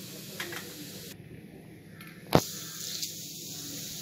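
A single sharp knock of a metal utensil against a steel plate a little past halfway, over a faint steady hiss, as thick cooked burfi mixture is tipped and scraped onto the plate.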